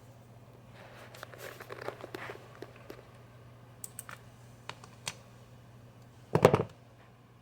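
Small parts of a washer door lock assembly being handled and fitted by hand: rustling and light clicks, a few sharp ticks, then one louder knock near the end, over a faint steady low hum.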